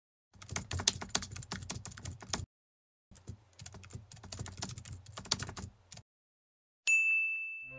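Keyboard-typing sound effect: two quick runs of key clicks, the second after a short pause. Near the end comes a single bright ding, the loudest sound, that rings and fades.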